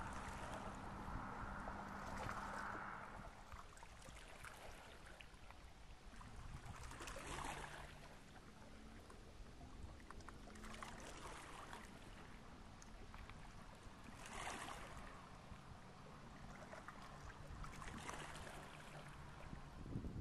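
Faint water sounds at the foot of a brick wall, with a soft swish swelling about every three to four seconds over a low steady hum.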